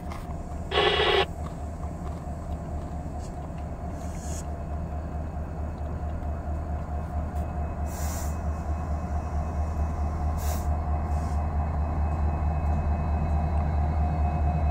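Union Pacific EMD SD70M diesel locomotive #4261 approaching at the head of a freight train: a steady low engine rumble that grows louder as it draws near. A brief loud burst of noise about a second in.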